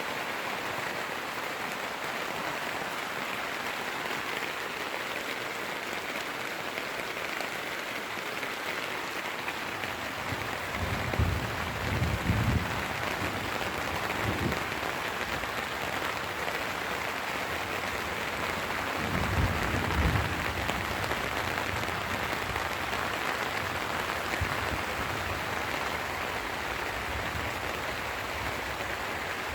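Steady rain falling on a tent, an even hiss, with bouts of low rumbling about a third of the way in and again about two-thirds through.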